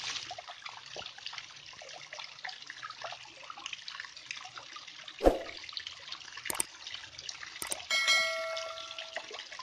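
Water falling and splashing into a pool, with trickles and drips, and one louder plop about five seconds in. Near the end come a couple of sharp clicks and a bright ringing chime, the click-and-bell effect of a subscribe-button animation.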